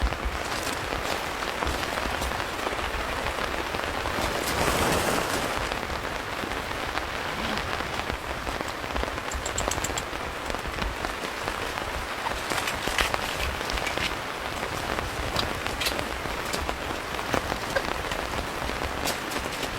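Steady rain falling in a forest, an even patter with scattered louder individual drops; the rain swells briefly about four to five seconds in.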